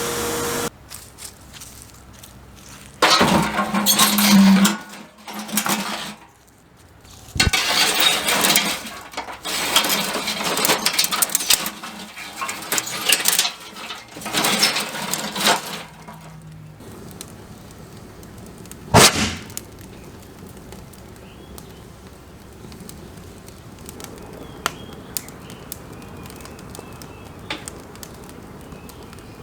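Hand work on a metal can: irregular bursts of scraping and rattling with a couple of sharp knocks, the loudest one late on. Then a low steady background with a few faint clicks.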